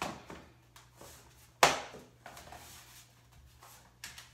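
Rigid vinyl-and-limestone floor plank being worked into its click-lock joint by hand: a few light knocks and one sharp, loud snap about a second and a half in.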